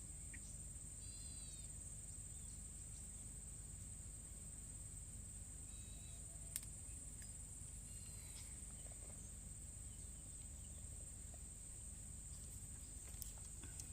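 A steady, high-pitched drone of insects, crickets or cicadas, with short chirping calls twice and a single click about halfway through.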